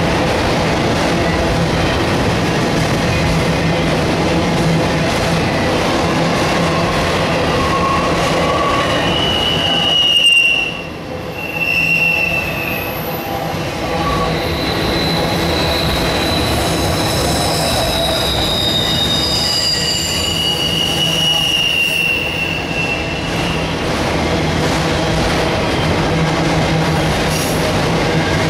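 Empty autorack freight cars rolling past: a steady rumble of steel wheels on rail, with high-pitched wheel squeals coming and going through the middle stretch.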